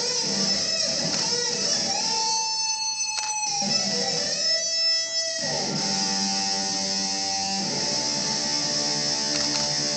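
Solo electric guitar played through an amplifier: a held note that bends down slightly in pitch, then a full chord struck about halfway through and left ringing.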